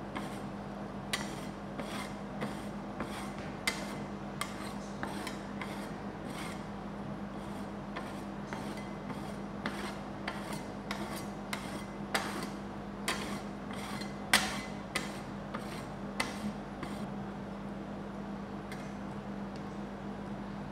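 Metal spatulas scraping and tapping on a sheet of ice cream spread over the frozen metal pan of a rolled-ice-cream cold plate. The strokes come irregularly and thin out near the end, over a steady low hum.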